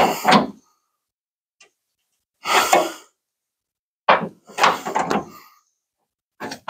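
Pneumatic air tool run in short bursts, tightening the truck-bed mounting bolts, about five blips of half a second or so with pauses between them.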